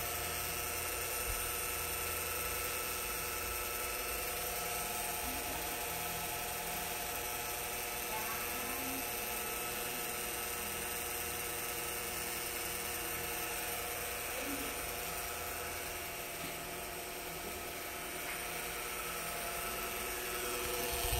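Steady whir and hum of a running electric stand fan, even and unbroken.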